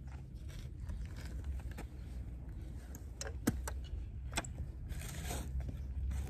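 Garden shovel digging into dry soil: a couple of sharp knocks about a second apart past the middle, then a short scraping crunch of the blade in the earth, over a steady low rumble.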